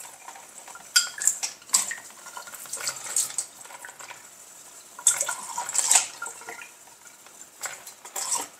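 Small glass parts of a home distiller clinking against each other in the hands while they are rinsed under a running kitchen tap: irregular light clinks over a faint wash of water.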